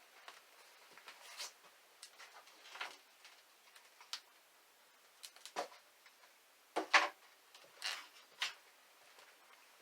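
Scattered light knocks and clatters of objects being handled and set down, irregular and spaced out, with the loudest pair about seven seconds in.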